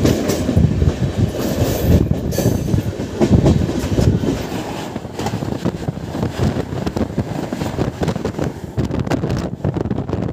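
Moving passenger train heard from an open coach doorway: steady running rumble with the wheels clattering over rail joints and points. A passenger train on the next track passes close by around the middle.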